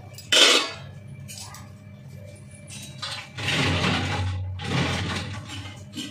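Kitchen handling at a cooking pot: a sharp clink just after the start, then two rustling pours of about a second each as frozen peas and corn are tipped into the pot.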